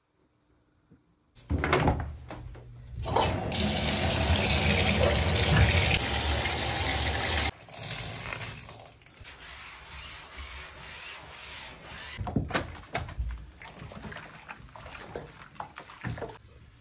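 Water running steadily from a tap into a bathtub, stopping suddenly about halfway through. Then gloved hands scrub and swish a desk mat in soapy bathwater, with irregular small splashes.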